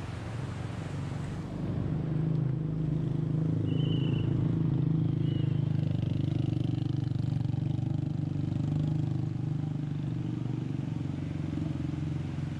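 An engine running steadily, growing louder about two seconds in and holding there.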